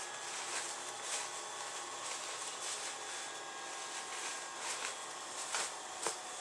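Fabric rustling and rubbing as a sewn pouch is pushed and pulled right side out through its open zipper, over a steady hiss, with a short sharp tap near the end.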